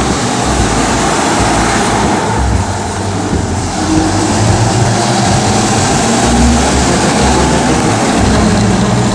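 1949 GMC Model 250 pickup running on the move: a steady loud rushing of engine and road noise under an uneven low rumble.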